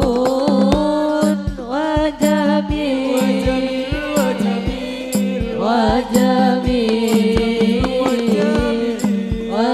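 Song playing: a sung, wavering melodic line over a steady drum beat, about two beats a second. It is recorded straight from an Ashley X-Man 12 mixer's output with the mixer's built-in effects on, unedited.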